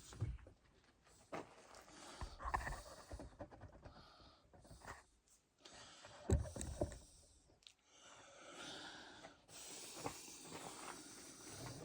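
Faint scattered knocks, clicks and rustling of handling and moving about, with a louder knock about six seconds in.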